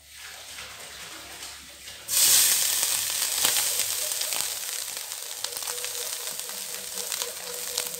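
Grated coconut tipped into hot ghee in a pan: a faint hiss for about two seconds, then a sudden loud sizzle that settles into steady frying with scattered crackles.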